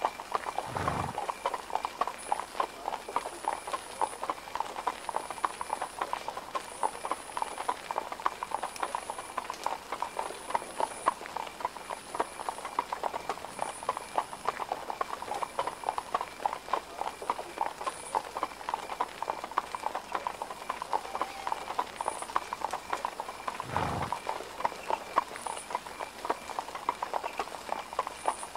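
Horse hooves clip-clopping steadily and continuously, with a dull low thud about a second in and another near the end.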